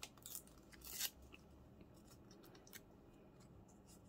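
A small scrap of paper being worked down to size by hand: a few short crisp crackles in the first second, the loudest just after a second in, then faint rustles and ticks as it is pressed into place.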